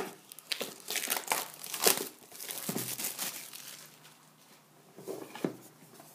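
Plastic shrink wrap being torn and pulled off a sealed hockey card box, a dense crackling that is busiest in the first two seconds, with another short burst about five seconds in.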